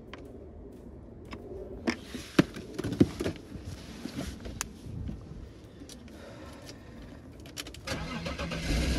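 A few sharp knocks and clicks as someone gets in at the driver's seat and handles the keys, then near the end the BMW E39's inline-six engine cranks and starts, settling into a steady idle. This is the first start after the coolant hose replacement and coolant refill.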